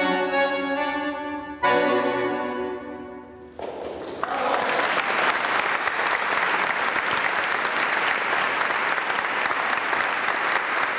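Pigini button accordion finishing a piece: a last held chord comes in a couple of seconds in and fades out. Then the audience's applause starts, about four seconds in, and goes on steadily.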